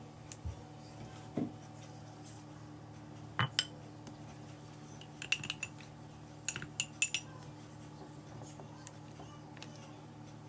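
Metal teaspoon clinking against a cup while honey is worked into a hot drink: scattered clinks, with a quicker, louder cluster a little past halfway.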